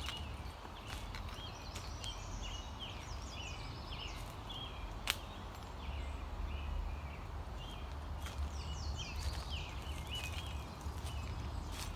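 Small forest birds chirping in quick, repeated short calls, over the crunch of footsteps in dry leaves and a low rumble, with one sharp click about five seconds in.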